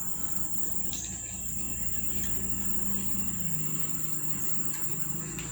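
Crickets trilling in a steady high-pitched drone, over a low hum that drops slightly in pitch a little past halfway.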